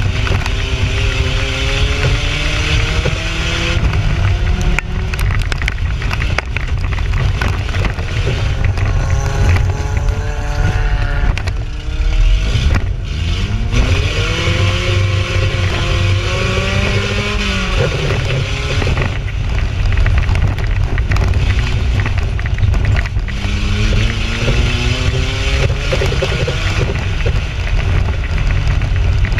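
Toyota 4Runner's engine heard from inside the cab while racing on a dirt circle track, its pitch climbing and falling several times as the throttle comes on and off, with a steep climb about halfway through. A heavy, constant low rumble and rattle runs underneath.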